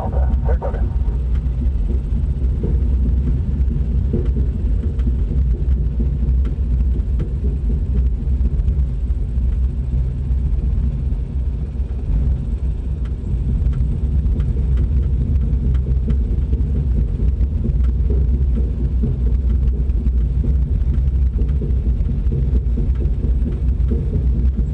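Steady low rumble of wind buffeting the cockpit camera's microphone, with a few faint clicks.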